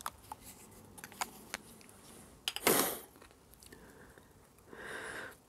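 Small clicks and ticks of fingers working an old BSA Bantam rotary switch apart, its spring-loaded ball-bearing detent inside. A louder brief rasp comes about two and a half seconds in, and a softer one near the end.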